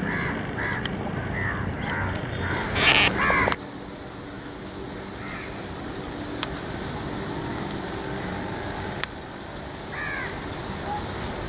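Birds calling outdoors: a run of short calls over the first few seconds, one loud call about three seconds in, and a few more short calls near the end. The background drops suddenly after about three and a half seconds, and two sharp clicks come later.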